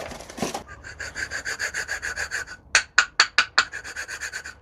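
A hand tool rasping back and forth on a brake part during a pad change, in even strokes about four a second. Partway through it turns to a run of harder, separate strokes.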